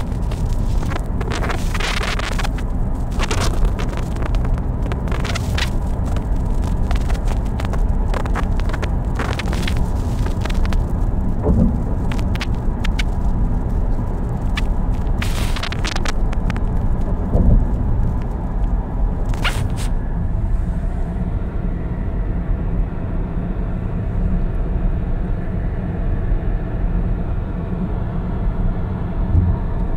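A car driving: steady low road and engine rumble, with frequent short clicks and knocks over the first twenty seconds or so, then a smoother rumble.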